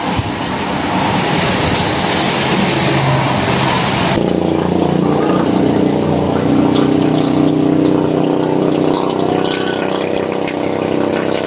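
Street traffic: an even hiss like tyres on a wet road for about four seconds, cut off abruptly, then a vehicle engine running with a steady low hum.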